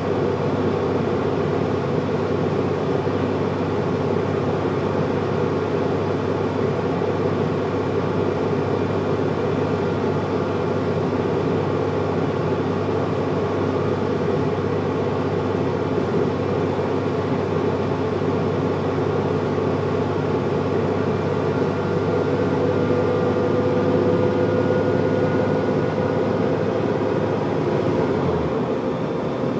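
Diesel bus engine and transmission heard from inside the passenger saloon, pulling steadily up a long hill under load: a continuous drone with a whine that rises slowly over the second half, then the deep engine note drops away near the end.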